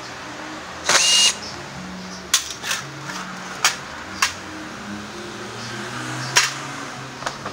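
Cordless drill-driver whirring briefly about a second in, backing out a scooter body-panel screw. Then several sharp clicks and knocks as the plastic body panel is worked loose by hand.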